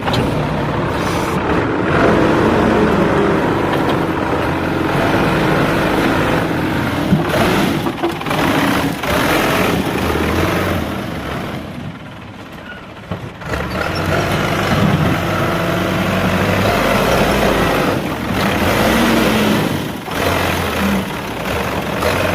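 JCB backhoe loader's diesel engine running, its level rising and falling, with a quieter spell of about two seconds around halfway.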